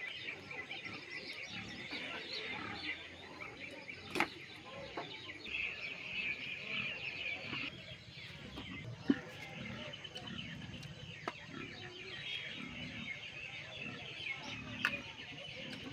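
Chickens clucking and small birds chirping on and on, with a few sharp metallic clinks of steel dishes, the loudest about halfway through.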